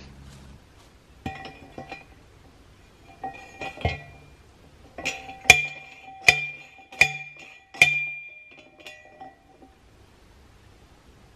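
Steel T-post driver hammering down on a metal fence T-post: a few lighter clanks, then four hard ringing metal clangs less than a second apart.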